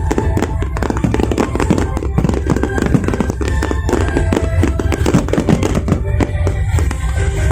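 Fireworks crackling and popping in a rapid, dense stream, mixed with background music.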